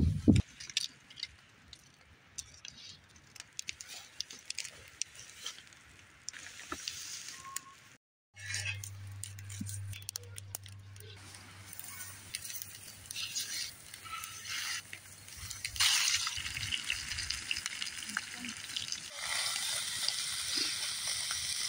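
Wood campfire crackling with scattered small pops. A low steady hum runs through the middle. Near the end, pork frying in a cast iron skillet over the fire gives a steady sizzle.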